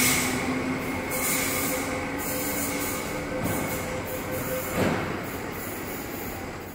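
MTR Metro-Cammell Mid-Life Refurbished electric train pulling away from the platform: the low hum of its nose-suspended traction motors and wheel noise, with two steady tones that drop out in turn. The sound fades slowly as the train draws away, with a single knock from the running gear near five seconds in.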